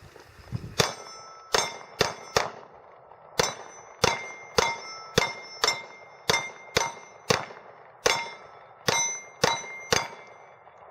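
A string of about seventeen pistol shots, fired roughly two a second with a few short pauses. Each shot is followed by a brief metallic ring from a steel target.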